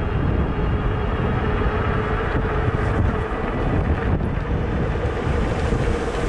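Cyrusher XF900 fat-tyre electric bike running at around 25 mph on throttle alone: wind buffeting the microphone over a steady hum from the 750 W Bafang motor and the fat tyres rolling on pavement.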